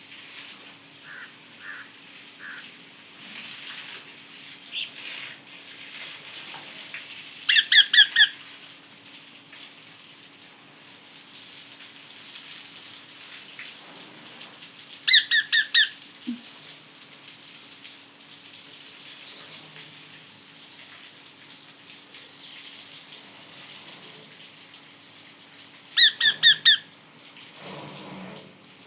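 Parrot calling in three short bursts of shrill squeaks, four quick notes each time: about eight seconds in, about fifteen seconds in, and near the end.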